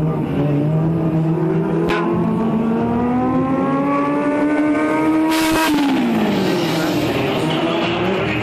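Stunt motorcycle's engine running at a steady pitch, then revving up steadily for about four seconds before dropping back sharply, with a short hissing burst just before the drop.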